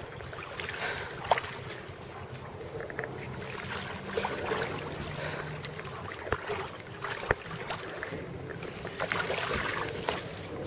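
Lake water splashing and sloshing as a swimmer is pulled through it toward a wooden dock on a throw-bag rope, with wind on the microphone and a few sharp knocks.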